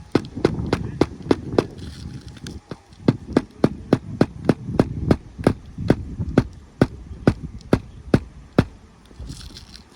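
Repeated hammer strikes on a roof while a stubborn shingle is worked out, about three blows a second. There is a short pause about two seconds in, then a long steady run of blows.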